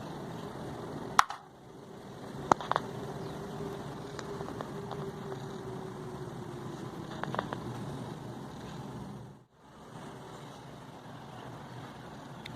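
A few sharp clicks and taps over a steady low hum, typical of small parts and tools being handled during drone repair work; the sound drops out briefly twice.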